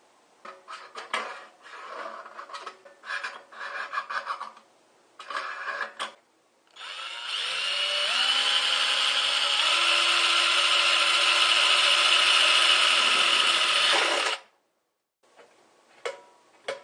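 Electric drill boring the air-inlet hole through the side of a steel food can. It runs for about seven seconds, its whine stepping up in pitch as it spins up, then stops abruptly. Before it come a few seconds of light scraping and tapping as the can is marked and handled.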